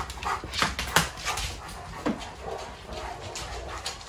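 Dogs whimpering and vocalising as an adult dog and its puppies jostle around, with sharp knocks in the first second and a short falling whine about two seconds in.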